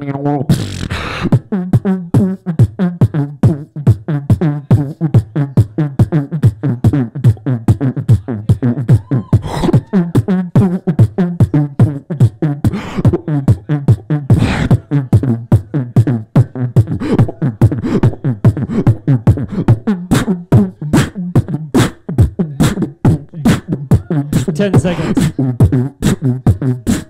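Solo beatboxing amplified through a hand-held microphone: rapid, dense mouth percussion of kicks, snares and hi-hats over a low, buzzing hummed bass line.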